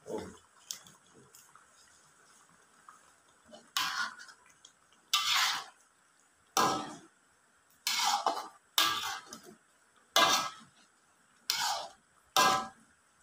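Metal spatula scraping and clanking against a metal wok as a pot of fish curry is stirred: about eight separate strokes, each about half a second long, beginning a few seconds in.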